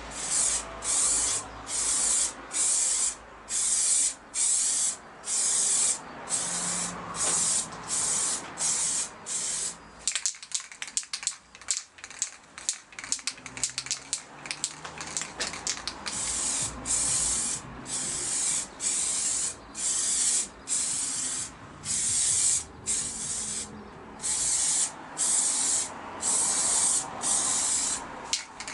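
Aerosol spray can spraying paint in short bursts, about two a second. Around the middle the spraying stops for several seconds of quick rattling clicks as the can is shaken, then the short bursts resume.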